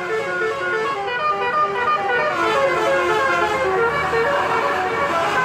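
A bus's telolet musical horn playing a quick tune of short notes that step up and down in pitch, several tones sounding together, without a break.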